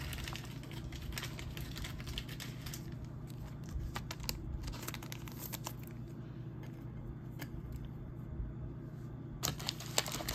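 Quiet rustling and light clicks of a trading card being handled and set onto a clear plastic display stand, over a steady low hum. There is a quick cluster of sharper clicks near the end.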